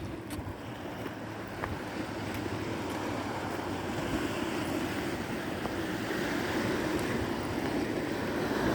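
Sea surf washing onto the beach, with wind buffeting the microphone; the wash of the waves grows gradually louder.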